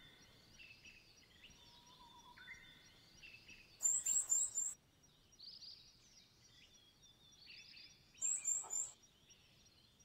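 Wild songbirds calling in woodland: a scatter of faint chirps and whistles, with two louder bursts of four quick high calls about four seconds apart.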